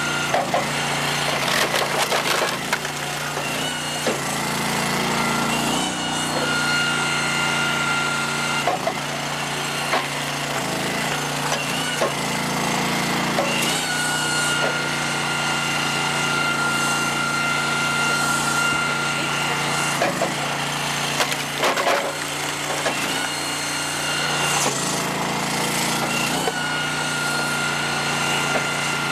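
Engine-driven hydraulic log splitter running steadily, with a high whine that comes and goes in stretches of a few seconds as the ram pushes rounds onto the wedge. Ash rounds crack apart and the splits clatter down at several points.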